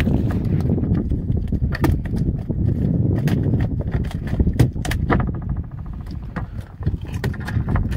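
Irregular knocks and slaps of catch and gear being handled on a wooden fishing boat's deck, over a steady low rumble of wind and the boat. There is a short quick run of rattling about five seconds in.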